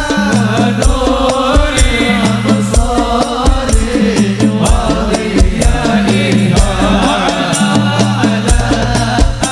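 Sholawat music: a regular hand-drum beat with a heavy, boosted bass under a winding melodic line.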